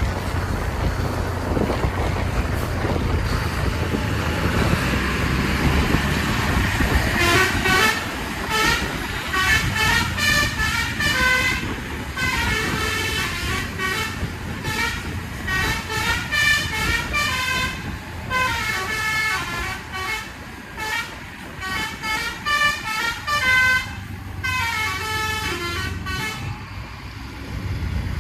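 A bus's Basuri V3 telolet horn plays a multi-note musical tune in short repeated phrases with brief pauses. It starts about a quarter of the way in and stops shortly before the end. Under it the bus engine and road noise run steadily.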